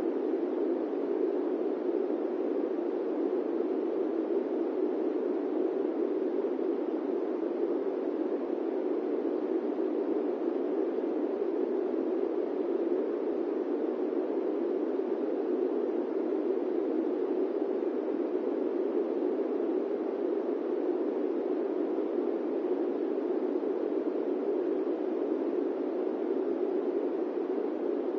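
Electric fan running steadily: an even, low-pitched rushing noise with no pulsing or changes.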